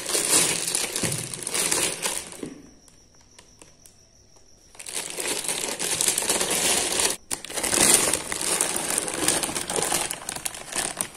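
Clear plastic wrapping crinkling as it is handled around a circuit board in a cardboard box. It stops for about two seconds a couple of seconds in, then resumes.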